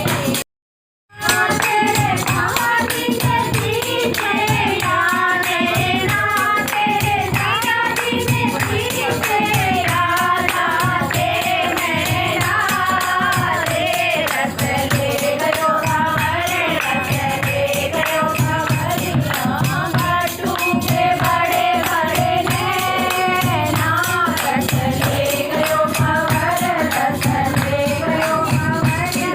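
Group singing over a steady beat with jingling percussion. The sound cuts out completely for under a second near the start.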